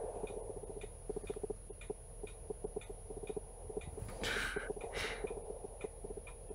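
Camera autofocus motor hunting, giving a rapid, irregular ticking picked up by the camera's own microphone. Two short breathy rushes of noise come about four and five seconds in.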